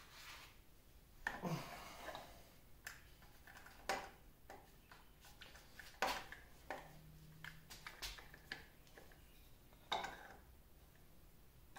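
Light metallic clicks and clinks, about eight spread out, as a folding hex-key set and an adjustable wrench work the screws of a 1950 LeBlond Regal lathe's taper attachment during disassembly.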